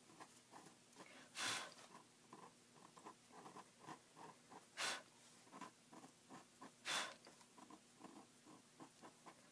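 A knife blade scraping old paste residue off a paper book page: faint, quick scratching, with three louder short hissing strokes spread through.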